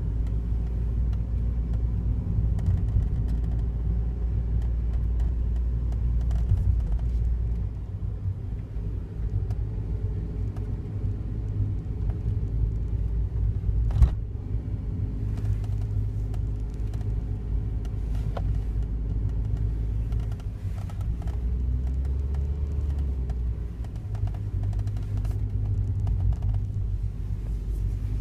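Daihatsu Wake kei car's three-cylinder engine and drivetrain running, a steady low rumble that eases about eight seconds in, with scattered faint clicks and one sharper click about 14 seconds in. The car has an unexplained abnormal noise, worst when the outside air is cold.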